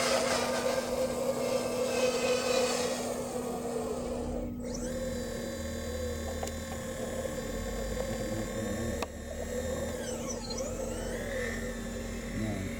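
Radio-controlled model CAT 5110B hydraulic excavator at work: its hydraulic pump and electric motors give a steady whining hum, with a model dump truck's drive whirring alongside. Near the end the whine dips and rises again as the motors change speed.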